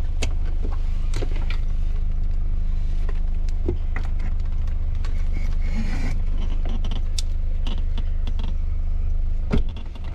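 Folded Ji-Move LC e-bike being pushed and shifted into a hatchback's boot: scattered clicks, knocks and chain rattles from the aluminium frame and rear rack, with one louder knock near the end. A steady low car-engine hum runs underneath.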